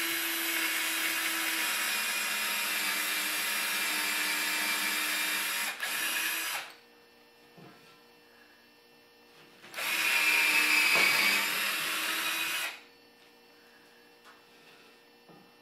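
Cordless drill with a 3/16-inch bit boring pilot holes up into a ceiling stud, in two steady runs. The first run stops about six and a half seconds in, with a brief dip just before the end. The second run is shorter and louder, from about ten to thirteen seconds in.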